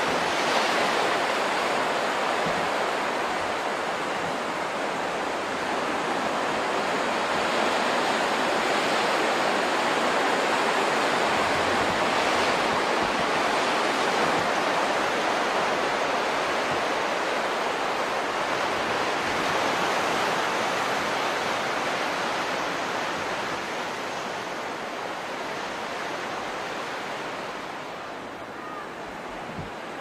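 Sea waves washing onto a sandy beach: a continuous wash of surf that swells and eases, getting a little quieter near the end.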